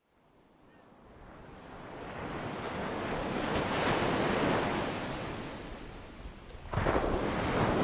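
Ocean surf: a wave washes in, swelling to a peak about halfway and ebbing away, then a second wave breaks sharply near the end.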